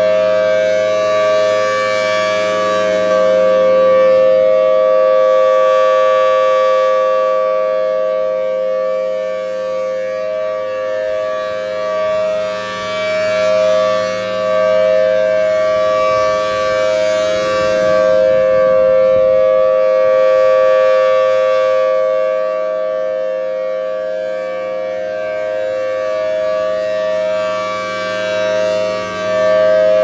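Federal Signal Thunderbolt B series siren sounding its full alert, a steady unbroken tone, swelling and fading in loudness every several seconds as the rotating horn sweeps past.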